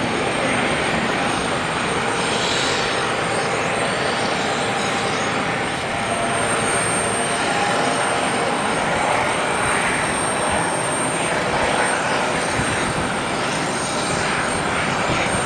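Eurocopter EC135 T2 helicopter climbing away after takeoff. Its twin Turbomeca Arrius turboshafts, main rotor and Fenestron tail rotor give a steady rotor and turbine noise.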